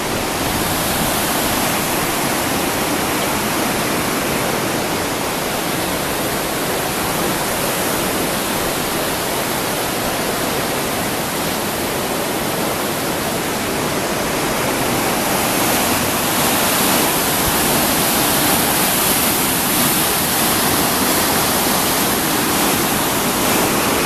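Swollen, fast-flowing Regnitz river rushing past the bridges: a loud, steady rush of water that grows a little louder in the second half.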